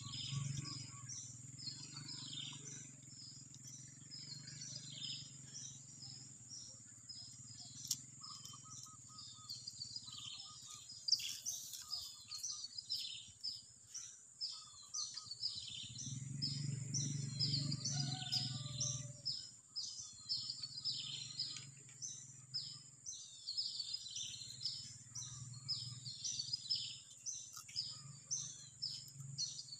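Birds chirping in quick, repeated calls over a steady high-pitched drone, with a low hum underneath that swells about halfway through.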